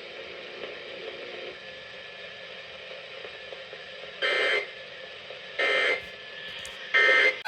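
Emergency Alert System end-of-message data bursts on NOAA weather radio: three short, harsh digital screeches about a second and a half apart, closing the severe thunderstorm warning. Faint radio hiss comes before them.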